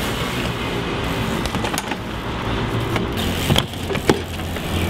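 Steady city traffic noise with a low engine hum, and a few sharp knocks of a BMX bike hitting concrete, the loudest about three and a half and four seconds in.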